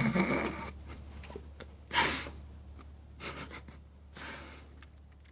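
A person's breath sounds: a noisy exhalation tailing off at the start, then three short breathy puffs about two, three and four seconds in, each quieter than the last.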